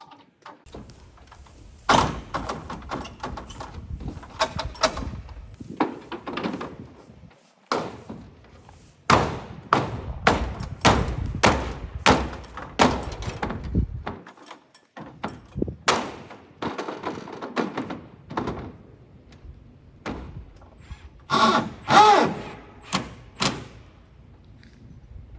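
Metal barn roof panels banging and rattling as they are worked on: a long series of irregular sharp knocks and thuds, some followed by ringing, the loudest near the end.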